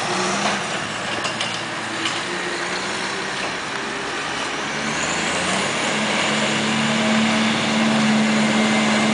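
Scania truck tractor unit's diesel engine running hard as the truck slides around on loose dirt, its steady engine note growing stronger and a little louder in the second half.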